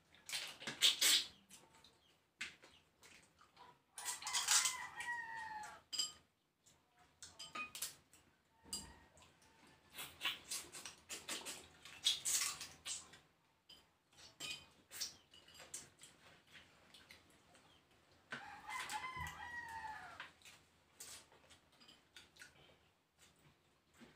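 Close eating sounds: slurps and sharp clicks from snails in coconut sauce being sucked from their shells and crab shell being picked apart by hand. A rooster crows twice in the background, about four seconds in and again about fifteen seconds later.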